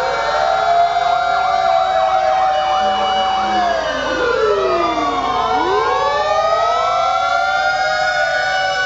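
Several fire engine sirens sounding at once, their wails overlapping as they rise and fall in pitch. For a couple of seconds near the start one of them switches to a fast yelp of quick repeated sweeps.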